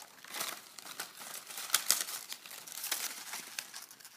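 Sheets of paper rustling and crinkling in the hands as they are folded, an irregular run of crackles that is loudest about two seconds in.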